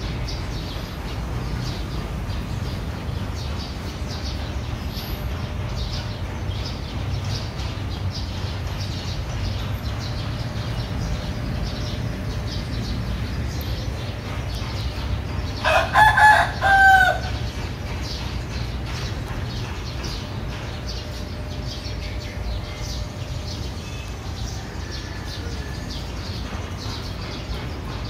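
A rooster crows once, about halfway through: a few short broken notes and then a held final note. A steady low background noise runs underneath.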